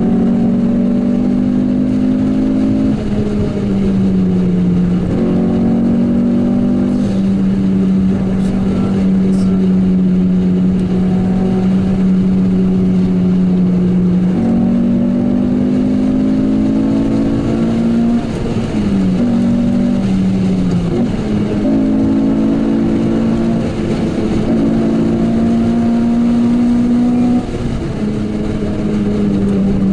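Renault Clio 197's 2.0-litre four-cylinder engine heard from inside the cabin, pulling hard under load. Its note holds or climbs slowly and drops suddenly several times with brief dips in level, as the driver changes gear or lifts off.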